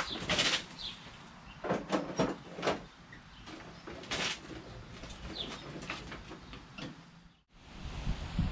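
Several clunks and rattles as a Craftsman LT2000 lawn tractor is pushed by hand but won't roll. Its hydrostatic transmission's disengage (freewheel) lever doesn't work, so it stays in gear. Small birds chirp faintly in the background.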